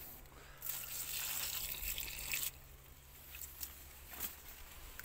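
Water splashing onto leafy garden plants for about two seconds as they are watered, followed by a few scattered drips.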